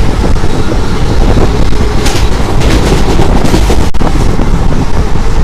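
Train running at speed, heard from an open door: heavy wind buffeting the microphone over the low rumble of the wheels on the track. The rush turns harsher and hissier from about two seconds in, until a very brief dropout near four seconds.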